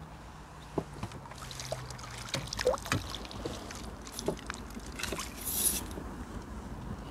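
Hooked crucian carp splashing at the water's surface while it is drawn in and scooped with a landing net: a string of small splashes and sloshes, loudest a little before halfway and again near the end.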